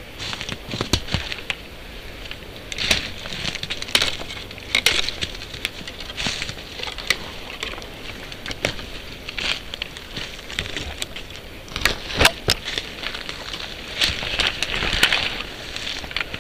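Footsteps crunching through dry forest litter and twigs, with branches and brush rustling against the walker, in irregular crackles and snaps.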